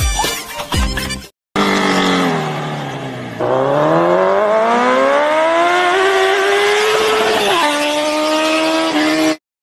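A motor vehicle engine, after a short stretch of music with a beat that stops about a second in. The engine's pitch sinks, then climbs steadily over several seconds as if accelerating. It drops a step near the end and holds steady, then cuts off suddenly.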